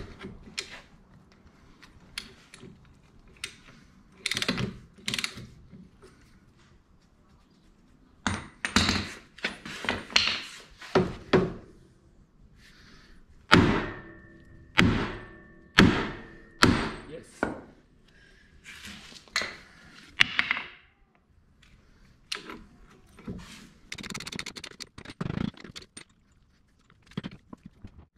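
Hammer blows on the steel steering knuckle of a Deutz-Fahr Agrotron 100's front axle, knocking loose the tightly fitted tapered joint of the steering linkage. About twenty sharp metallic strikes come in irregular groups, and one group a little past the middle rings briefly.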